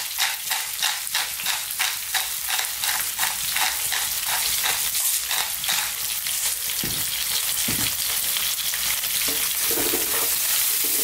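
Onions, garlic and bay leaves sizzling in oil in a frying pan. For the first six seconds or so a pepper mill grinds over the pan in an even rhythm of about three turns a second. After that a wooden spoon knocks and stirs through the pan over the steady sizzle.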